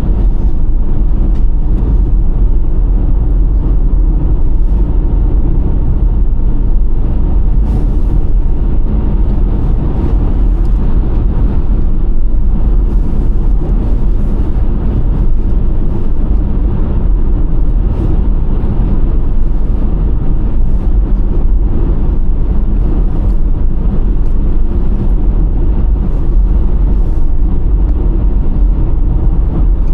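Steady engine and road rumble inside the cabin of a moving micro camper van.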